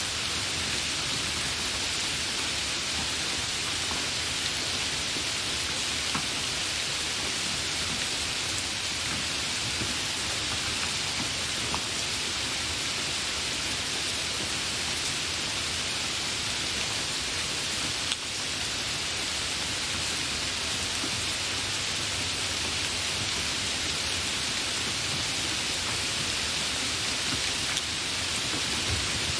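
Hard rain falling steadily: a dense, even hiss with faint scattered drop taps, and one brief click about two-thirds of the way through.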